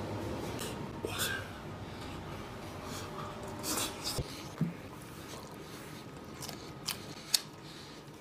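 A person eating pork ribs: scattered wet mouth sounds of biting and chewing, with a few short sharp clicks and a louder click about seven seconds in.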